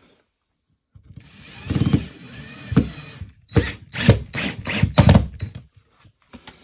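Cordless drill-driver driving screws into plasterboard: after about a second of quiet the motor runs for about two seconds, then gives a string of about five short bursts.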